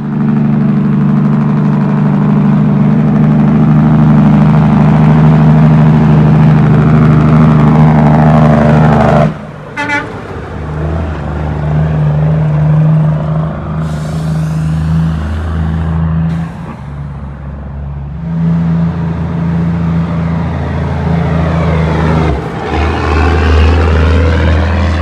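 Heavy diesel trucks driving past one after another, among them a long-hood tractor pulling a dump trailer and a loaded, tarped dump truck, their engines droning steadily and loudly. The sound changes abruptly a few times as one truck's pass gives way to the next.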